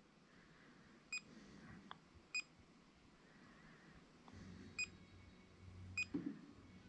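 Elegoo Neptune 3 MAX 3D printer's touchscreen key sound: four short high beeps, one per button press, spaced a second or more apart. A faint low hum starts about four seconds in.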